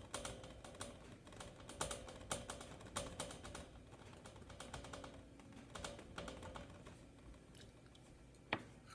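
A metal utensil clicking and scraping against a baking sheet of cookies in quick runs of light clicks, busiest in the first four seconds and again about six seconds in.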